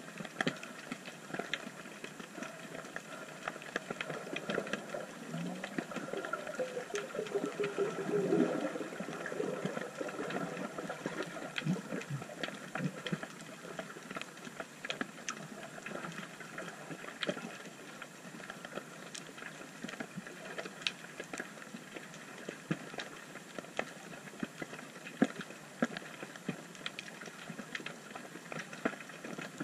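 Underwater ambience at a rocky reef: a constant, irregular crackle of sharp clicks and pops. A low wavering sound comes in about five seconds in and fades by about nine seconds.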